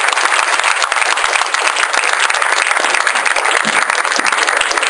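Audience applauding steadily: many hands clapping at the end of a lecture.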